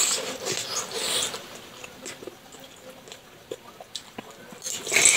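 Close-miked eating of spicy boneless chicken feet in sauce: wet slurping and chewing, louder at the start, about a second in and near the end, with soft chewing clicks between.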